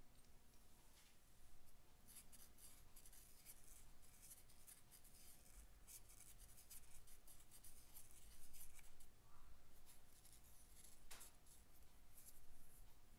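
Faint, quick scratchy rubbing strokes of a cotton swab cleaning out a bore in a 1951 Vincent Rapide's crankcase, with one sharper tick near the end.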